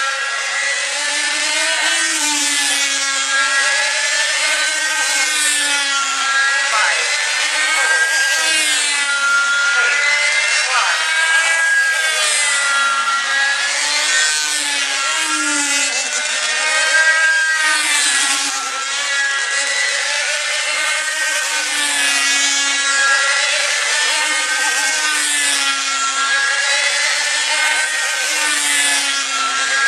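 Several small diesel model-aircraft engines of control-line combat models running flat out together: a high buzz made of several overlapping pitches, each rising and falling every lap or so as the models circle the pilots.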